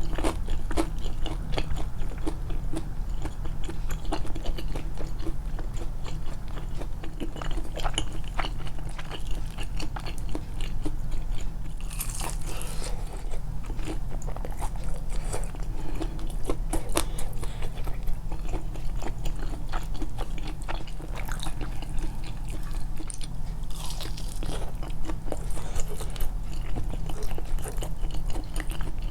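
Close-miked biting and chewing of crisp-coated food, with scattered small crunches and wet mouth clicks. A steady low hum runs underneath, and there are two short hissy bursts near the middle and about four-fifths of the way through.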